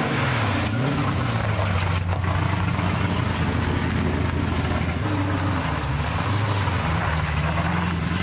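V8 engine of an LS-swapped Chevrolet C10 race truck, running loud, its pitch rising and falling in the first second and then holding steady as the truck pulls off over gravel with its rear tyre spinning.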